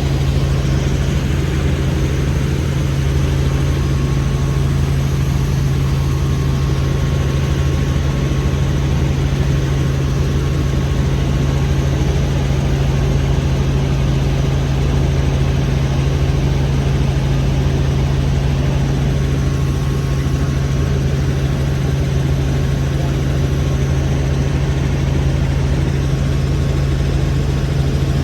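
Helicopter in flight, heard from inside the cabin: a steady, loud drone of engine and rotor with a constant low hum that does not change.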